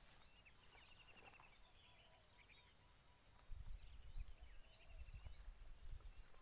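Faint outdoor ambience with small birds giving short chirps and trills. From about halfway there are irregular low thumps.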